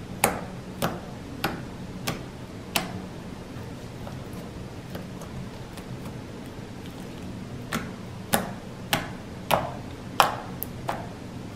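Fingertips poking and kneading clear-glue slime, each press letting out a sharp popping click of trapped air, about one every half second. Five pops come in the first three seconds, then a quiet spell, then a second run of about seven near the end.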